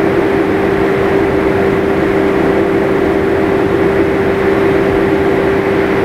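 Steady mechanical drone: a constant mid-pitched hum with a fainter lower hum over a rushing noise, unchanging throughout.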